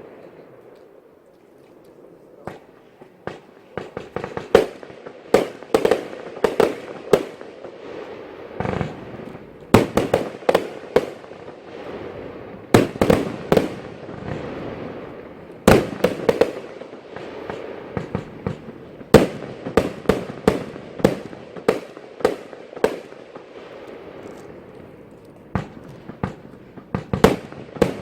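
Category F2 consumer fireworks going off: after a quieter first couple of seconds, a long run of sharp bangs in quick clusters of several a second, over a steady crackle.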